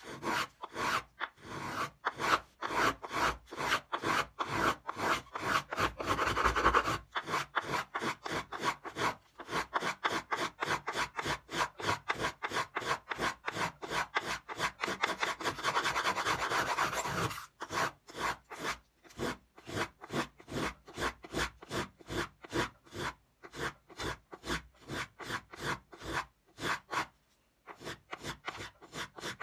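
A small violin-maker's plane shaving the spruce top of an old 3/4 factory violin, planing away the old carved-in "fake" bass bar. The strokes are quick and even, about two a second, with a few brief pauses.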